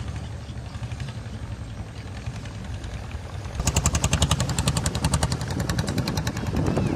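A small motorboat engine running with a rapid, even popping exhaust, about ten pops a second. It grows much louder about three and a half seconds in as the boat passes close by.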